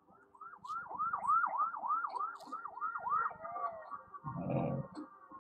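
Police car siren in yelp mode, its pitch swooping up and down about three times a second, then sliding into a slower falling wail. A short low rumble comes about four seconds in.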